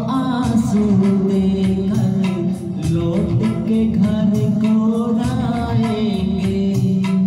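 A man sings a Hindi devotional song (bhajan) into a handheld microphone, in long, wavering held notes. Under him runs an instrumental accompaniment with a steady beat.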